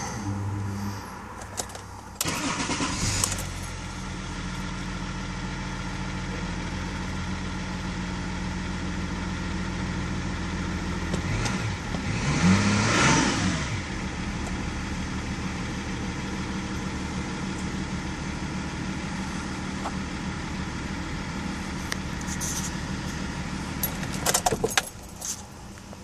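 BMW E39 530d's straight-six diesel is cranked and starts about two seconds in, then idles steadily, with one brief rev up and back down around the middle. Near the end there are a few clicks and a jingle of keys, and the engine is switched off.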